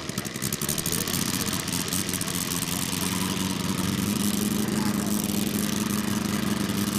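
Quarter-scale model Bentley BR2 rotary aero engine running just after being started, its pitch wavering briefly and then holding steady at idle about three seconds in.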